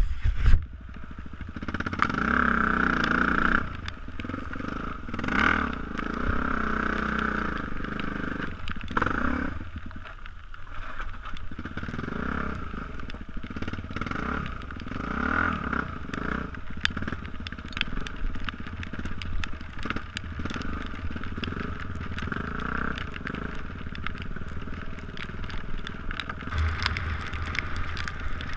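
Dirt bike engine heard from on board the moving bike, its pitch and loudness rising and falling with the throttle, with scattered sharp clatters.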